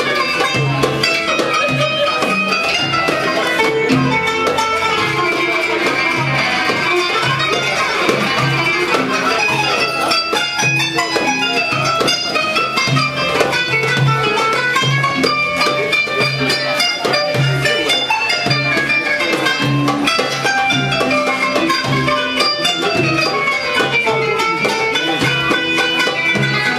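Live Middle Eastern band music: oud and kanun playing plucked melodic lines over hand drums keeping a steady beat.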